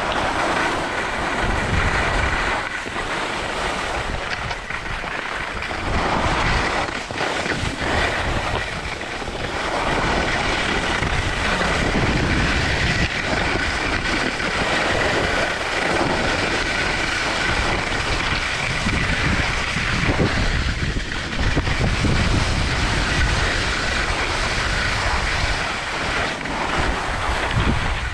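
Wind buffeting a GoPro's microphone during a fast downhill ski run, with a heavy rumble that rises and falls, over the hiss and scrape of the skis running on packed snow.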